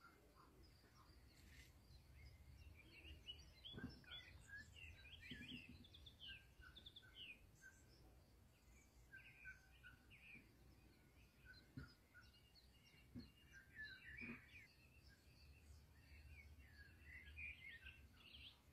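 Faint birdsong: birds chirping and twittering in short, scattered phrases, with a few soft knocks in between.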